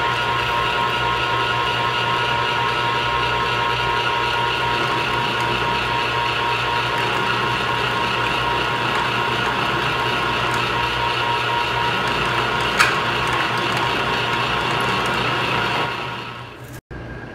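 Electric meat grinder running steadily as it minces chicken, a constant motor hum with a steady whine. It stops near the end.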